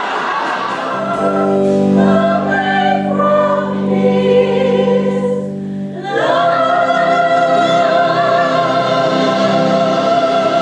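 A group of voices singing together in chorus, holding long notes, with a shift to a new sustained chord about six seconds in.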